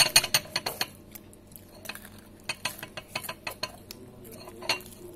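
Tableware clattering on a table close to the microphone: a quick run of sharp clicks and knocks in the first second, then scattered taps about two and a half to four seconds in, and one more near the end.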